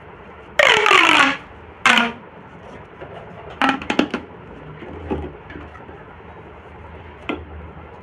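Plastic pop tubes being stretched and squeezed by hand: the ribbed segments snap through with a loud zipping rasp that carries a falling tone, once for about a second and once briefly near two seconds. A cluster of sharp clicks comes around four seconds in, and one click near the end.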